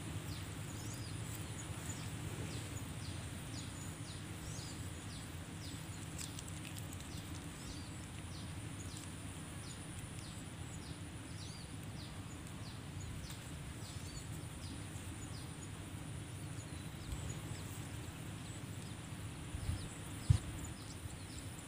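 Outdoor natural ambience: a steady low rush under a thin, steady high whine, with short high chirps repeating about twice a second. A single soft knock comes near the end.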